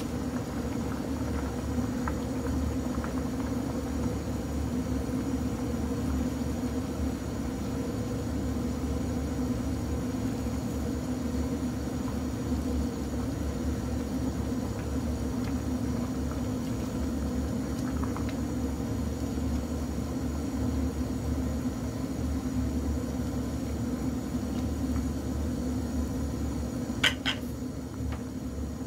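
Chicken and mung bean soup simmering in a stainless steel pot on a gas burner: a steady bubbling and burner rumble, with a single sharp knock near the end.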